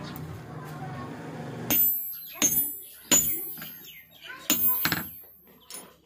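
Hand hammer striking metal on a steel anvil: about six sharp blows, starting a little under two seconds in, the first several each followed by a bright metallic ring.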